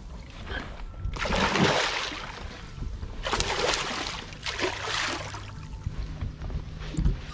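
Water splashing and sloshing in several bursts of about a second each, from a large pike, about 90 cm, thrashing at the surface as it is handled.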